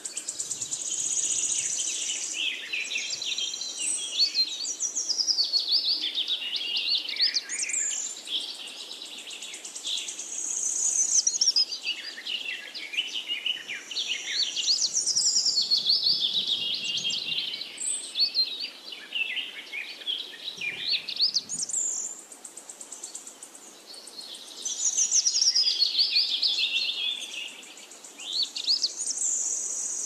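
Birdsong: several songbirds singing overlapping high warbling and twittering phrases, with short lulls between runs.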